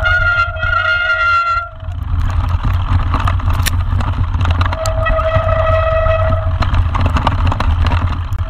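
Mountain bike rolling down a rocky trail, heard from a camera on the bike: a loud, steady rumble of wind and tyre noise over stones. A disc brake squeals in one steady tone twice, at the start and again about five seconds in.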